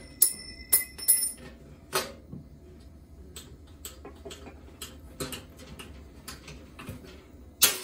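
Sharp metallic snaps and clicks as knockout tabs are broken out of a metal breaker-panel cover, several loud ones in the first two seconds with the sheet metal ringing briefly after them. Lighter taps and handling clicks follow, with another loud snap near the end.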